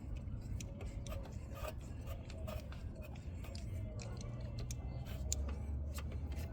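Hand work on the coolant reservoir's fittings: irregular small clicks and taps of parts and tools, over a steady low rumble.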